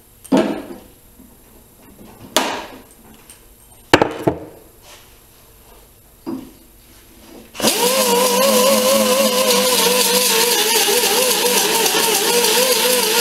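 A few short knocks of tools being handled, then a small pneumatic grinder starts abruptly about two thirds of the way in and runs against the steel trunk lid, a loud steady whine that wavers a little in pitch as it is pressed on the metal.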